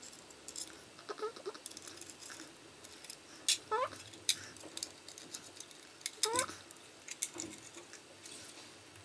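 Small screwdriver and screws working on a metal laptop drive caddy: scattered light metallic clicks and clinks, a few of them sharper, with several short squeaks that rise in pitch.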